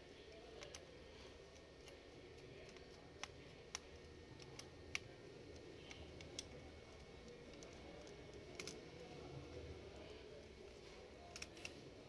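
Faint, scattered clicks and ticks of a small screwdriver working the heat-sink screws of an HP EliteBook 840 G3 laptop, as the heat sink is unscrewed, over a low steady hum.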